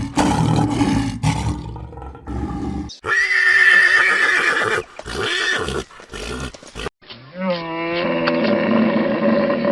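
Several different animal calls cut one after another. A low, dense call runs for the first three seconds. It is cut off abruptly by a harsh, noisy call, then come short broken sounds. From about seven seconds in, one long pitched call is held steady.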